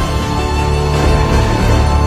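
Background music of slow, held notes over a deep sustained bass.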